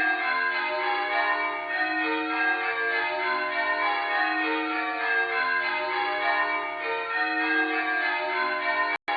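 Church tower bells change ringing: the bells are struck one after another in a steady rhythm, their notes overlapping and ringing on. The sound cuts out for a split second near the end.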